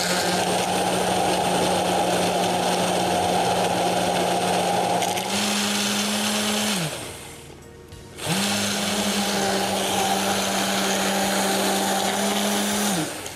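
Hand-held immersion blender puréeing cooked beetroot in a tall beaker, its motor running steadily. The pitch rises slightly about five seconds in, and the motor spins down just before seven seconds. After about a second's stop it starts again and runs until it spins down at the end.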